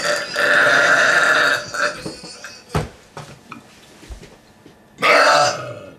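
A person belching loudly on purpose: one long drawn-out burp of nearly two seconds, a sharp click about three seconds in, then a second, shorter loud burp about five seconds in.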